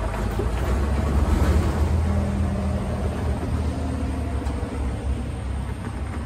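Road traffic passing: the engine and tyre rumble of a box truck, pickups and cars, swelling about a second in and then easing off.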